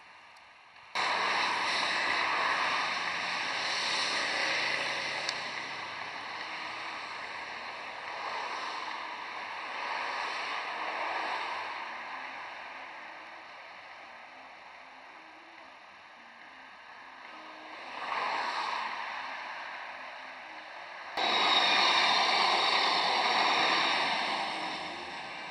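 Electric low-floor tram running on track, a steady rolling and motor noise that swells and fades as trams approach. The noise starts abruptly about a second in and jumps to its loudest about 21 seconds in, as a tram passes close by.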